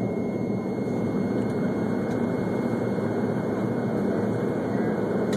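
Airplane cabin noise during the climb after takeoff: engines and airflow making a steady, unchanging drone.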